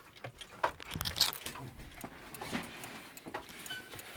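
Irregular clicks, knocks and light rattles from a heavy mantle clock being handled, the loudest knock about a second in.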